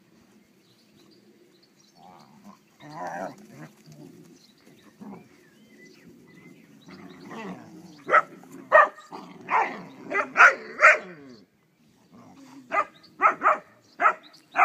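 Dogs playing rough: low growling, then a run of sharp barks from about eight seconds in, some six in three seconds, a brief pause, and another quick run of barks near the end.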